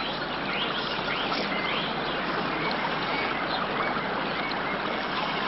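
Steady rush of flowing river water, with birds giving short rising chirps during the first few seconds.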